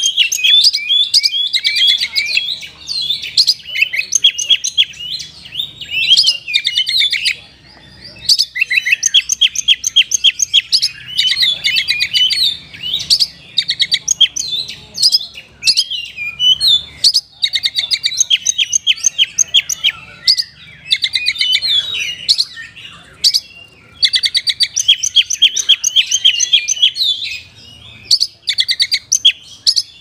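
Oriental magpie-robin (kacer) singing loudly in long phrases of fast trills and rapidly repeated high notes, separated by brief pauses.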